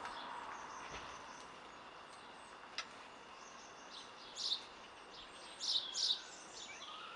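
Birds chirping: short high chirps several times in the second half, over a faint steady outdoor hiss, with a single sharp click near the middle.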